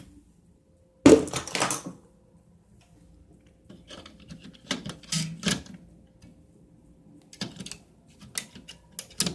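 Thermostat batteries being pulled out of and pressed into a plastic battery compartment by hand: a series of plastic clicks, knocks and light rattles, the loudest a sharp knock about a second in.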